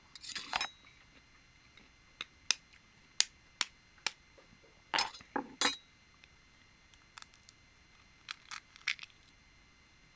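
Balut (fertilized duck egg) shell being tapped and cracked open: about a dozen sharp taps and clinks at uneven spacing, some in quick pairs.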